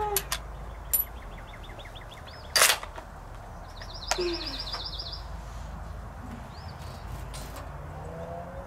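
Small birds chirping, with quick trills a couple of times, over quiet outdoor background. About two and a half seconds in there is a single short, sharp crack, with a few fainter clicks around it.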